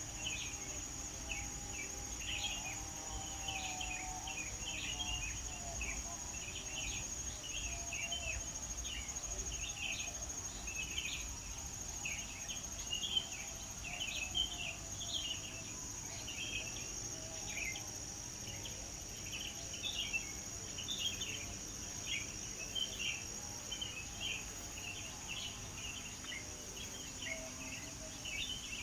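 Birds chirping continuously in short, overlapping calls, over a steady high-pitched trill of insects.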